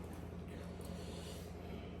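Faint breathing through the nose, with a soft breathy hiss about a second in, over a steady low hum.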